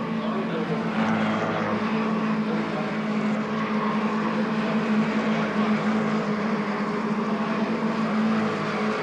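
Mercedes-Benz 190E 2.3-16 race cars lapping the circuit. Their 2.3-litre 16-valve four-cylinder engines run at high revs with a steady, even note.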